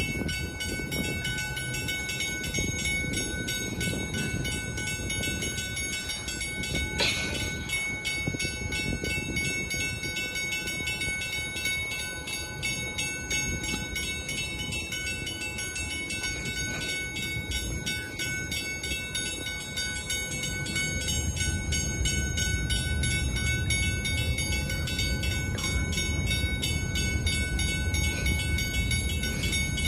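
Lift-bridge warning bells ringing steadily, with a sharp knock about seven seconds in and a deeper rumble building over the last third.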